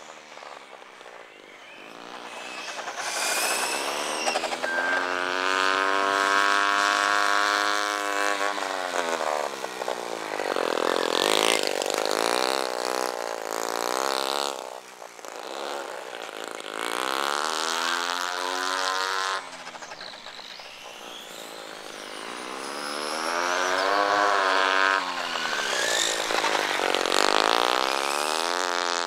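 Nitro RC motorbike's OS .20 two-stroke glow engine, screaming at high revs. Its pitch rises and falls several times as the throttle opens and closes and the bike laps past, with short dips in volume between passes.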